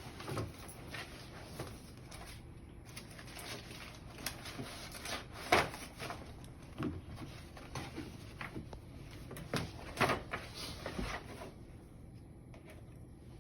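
Scattered light knocks, clicks and rustles of objects being handled, with a sharper knock about five and a half seconds in and another about ten seconds in.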